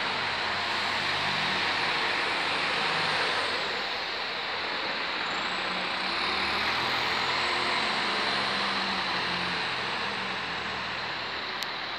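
Single-deck bus engine running as the bus drives past and pulls away, its note rising and falling over steady street traffic noise. A short click near the end.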